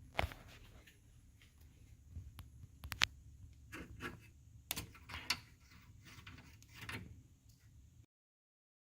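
A series of sharp clicks and light knocks, the loudest about three seconds in, over a faint low rumble; the sound cuts off about eight seconds in.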